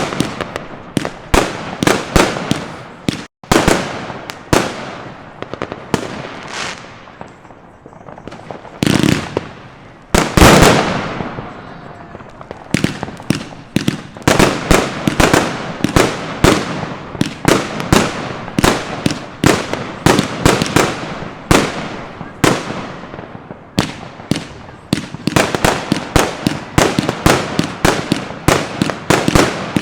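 Broekhoff "Triple X" firework battery firing a fast, continuous barrage of sharp bangs, several per second. The shots thin out briefly about a third of the way in, come back with two loud clusters, then keep up a steady rapid volley to the end.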